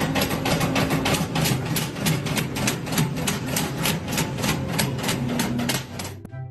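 Machine clattering with a fast, even beat of about five knocks a second, cutting off abruptly near the end, with background music faintly underneath.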